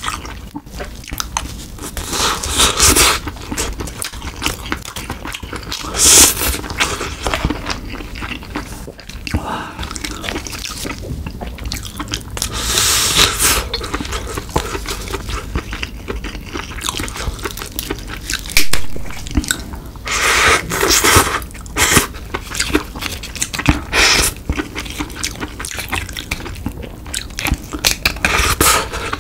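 Close-miked eating of snow crab: crab leg meat being worked out of the shell and eaten, with wet chewing and biting sounds and scraping against the shell, in several loud bursts.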